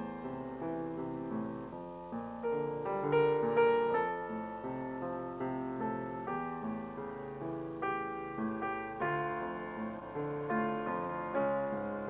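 Piano music: chords and a melody line, each note struck and then fading.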